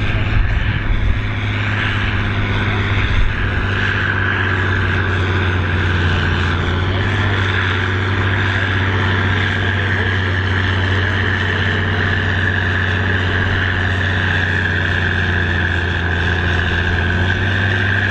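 Massey Ferguson 8130 tractor's diesel engine running steadily under heavy load as it drags a pulling sled slowly down the track, with a few thumps in the first three seconds.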